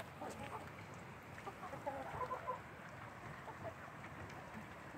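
Chickens clucking faintly, with scattered soft clucks that are busiest about two seconds in. A short sharp click sounds at the very start.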